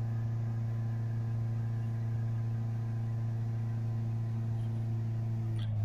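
Ford 2.0 TDCi four-cylinder diesel engine held steady at about 3500 rpm, a constant even drone, during a high-rev check of the diesel particulate filter's back-pressure after cleaning.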